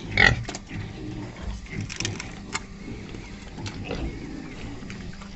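Pigs eating: scattered smacking, crunching chewing noises, with one short squeal near the start, over a low steady hum.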